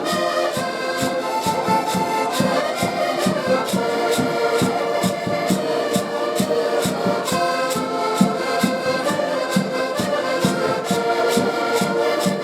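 Live band playing Portuguese traditional popular music, with sustained melody over a steady quick beat.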